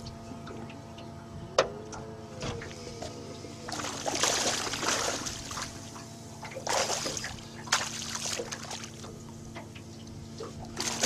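A hooked flathead splashing at the surface beside the boat as it is drawn in, in several short bursts, the longest about four seconds in, over a steady low hum.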